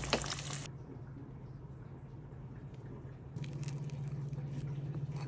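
Tomato stew with stockfish simmering in a pot: soft bubbling and wet plops over a low steady hum, quieter for a couple of seconds and then picking up again.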